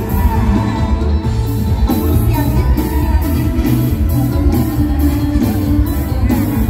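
Live mor lam music over a large PA system: a singer over a band, with heavy bass and a steady beat of about two strokes a second.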